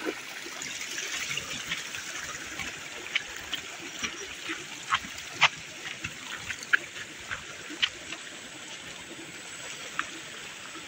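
A small stream of water trickling steadily through a channel beside the path, with sharp clicks scattered through it. The loudest clicks come around the middle.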